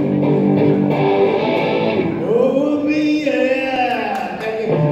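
Amplified band music with electric guitar: a held chord rings for about two seconds, then a pitched line slides and bends up and down through the middle before a new low note comes in at the end.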